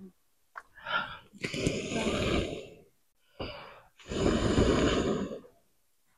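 A person blowing hard on smouldering firewood embers in a clay hearth to rekindle the fire: two long blows of about a second and a half each, each with a shorter breath just before it.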